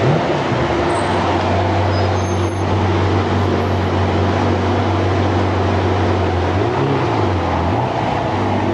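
Ferrari Testarossa-series flat-twelve engine running at low revs as the car creeps along in traffic: a steady low drone, with a brief rise and fall in revs about seven seconds in.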